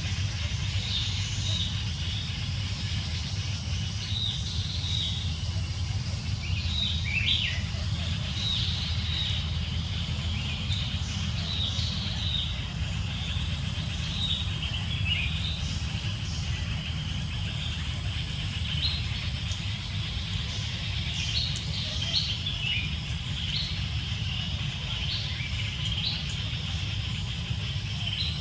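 Birds chirping in many short, high calls throughout, over a steady low rumble.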